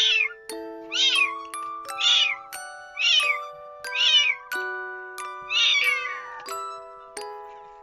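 A two-to-three-week-old kitten meowing over and over, a short high-pitched call about once a second, seven times.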